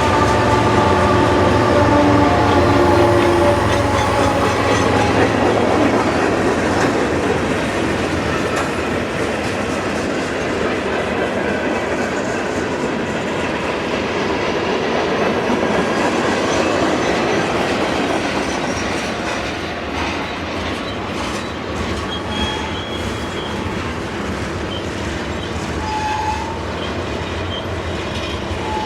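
A train rolling past, its wheels clattering over the rail joints in a steady clickety-clack. A cluster of tones fades out over the first few seconds. Short, high wheel squeals come near the end.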